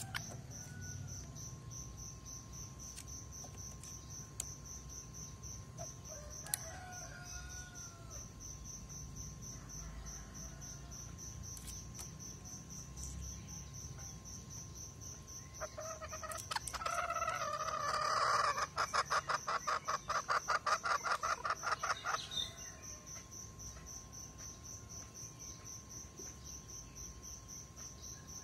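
A male green junglefowl calling: a short call about a quarter of the way in, then a longer, louder call in the middle that breaks into rapid pulses for about four seconds. Crickets chirp steadily throughout.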